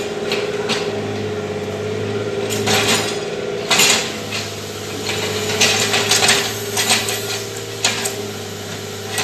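Backhoe's diesel engine running steadily while the bucket and its linkage clank and scrape, with a string of sharp metallic knocks through the middle and later part.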